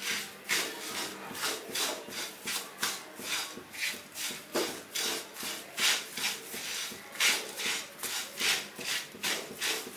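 A spatula scraping and stirring curry leaves, dry red chillies and urad dal in a wok while they dry-roast, in quick repeated strokes about two a second.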